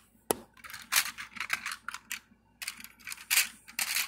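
Clicks and rattles of small model train pieces being handled and set down: one sharp click about a third of a second in, then several short bursts of clattering, the loudest near the end.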